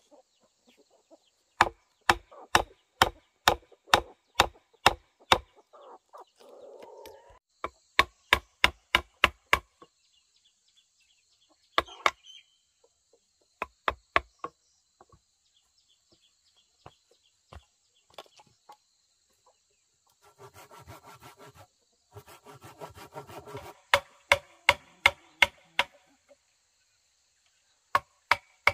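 Runs of sharp chopping strikes on wood, about two a second, stopping and starting again several times. A few seconds of rough, buzzy noise come in about two-thirds of the way through, running into a last run of strikes.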